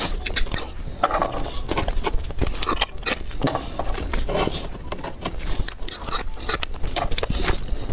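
Close-miked eating sounds: rapid, irregular crunching bites and chewing with wet smacks, now and then a clink or scrape of utensils against a dish.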